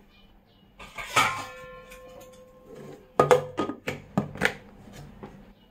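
Stainless steel mixer-grinder jar clanking: a knock about a second in leaves it ringing for a second or two. From about three seconds on comes a run of sharp knocks and clatter as soaked urad dal is worked into the jar by hand.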